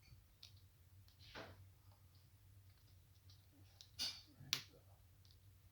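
Quiet handling sounds of a self-adhesive Velcro circle and the catcher's helmet chin guard being repositioned by hand: a few faint clicks and rustles, the two loudest close together about four seconds in, over a low room hum.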